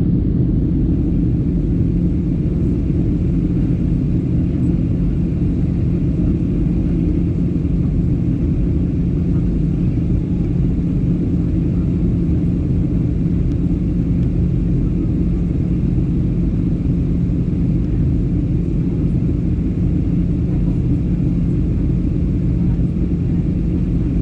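Steady cabin drone of an airliner in flight: a constant low rumble of engines and airflow with a steady low hum.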